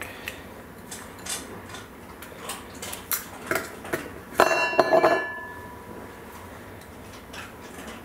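Metal parts of a Schlage BE365 keypad deadbolt clicking and clinking as the lock's outside assembly is pulled apart by hand. A cluster of louder metallic clinks with a brief ring comes about four and a half seconds in.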